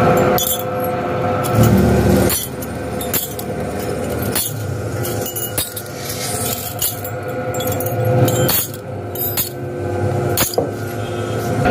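Metal clinking and knocking: about ten sharp clinks at uneven intervals, over a steady low background noise.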